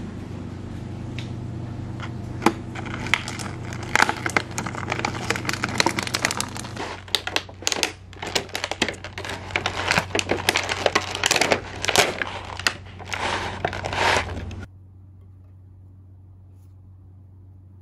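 Thin plastic clamshell packaging of strawberries crinkling and crackling as it is handled and opened, with many sharp clicks and snaps. It stops abruptly about fourteen and a half seconds in, leaving only a faint low steady hum.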